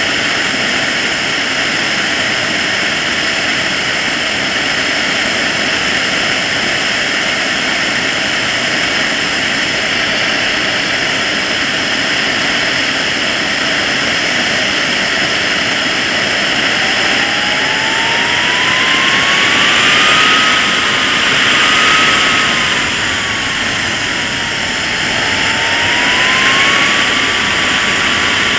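KingTech K80 model jet turbine running with a steady high whine and rushing noise. About two-thirds of the way through it is throttled up, the whine rising in pitch and getting a little louder, then dipping briefly and rising again near the end.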